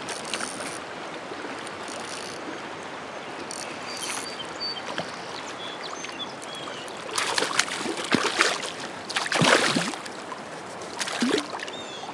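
Shallow river current running over rocks and weed beds, a steady rushing of water. From about seven seconds in, a few louder splashes break through, around the time a hooked smallmouth bass is brought to the surface.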